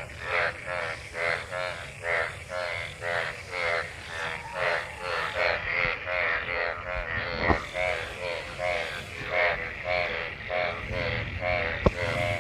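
Frogs croaking in a breeding chorus, calls overlapping in a steady rhythm of about two a second. Two sharp clicks stand out, one about halfway through and one near the end.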